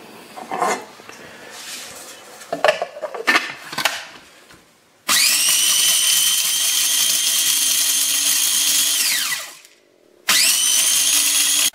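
Cuisinart mini food processor grinding rosemary leaves and peppercorns. A few knocks and clicks come first, then the motor starts with a high whine about five seconds in, runs steadily for about four seconds and winds down with falling pitch. It starts again for a second run near the end.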